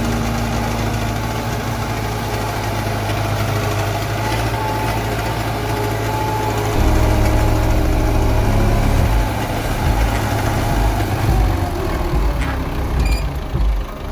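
Engine of a heavy earthmoving machine or truck running steadily. About seven seconds in it gets louder and heavier, then turns uneven near the end with a few knocks.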